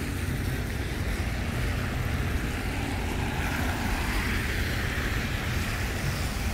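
Wind rumbling on the microphone over a steady hiss of rain. The hiss swells for a couple of seconds around the middle.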